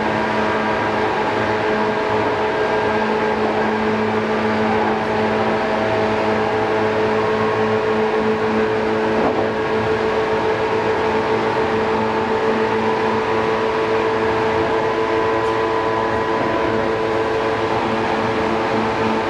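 JNR 185 series electric train running, heard from inside the motor car: the MT54 traction motors and their gearing give a steady multi-tone whine over the rumble of the wheels on the rails. The pitch holds level throughout, as at a constant speed.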